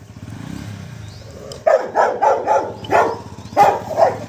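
Rottweiler growling low for about a second and a half, then barking in a quick string of six or seven sharp barks, an aggressive warning at a cobra.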